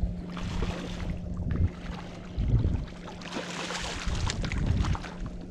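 Wind gusting and buffeting the microphone on an open boat, with stronger rushes about half a second in and again from about three to five seconds, over a steady low hum.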